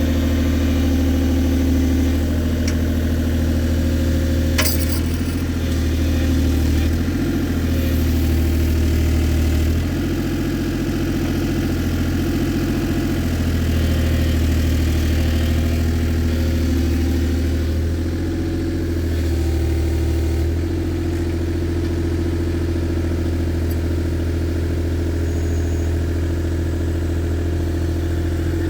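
An engine idling steadily, its note shifting slightly a few times.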